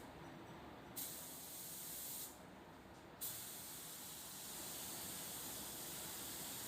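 Compressed-air paint spray gun hissing with the trigger pulled: a spray pass starts about a second in, stops briefly after two seconds, then starts again and keeps going steadily.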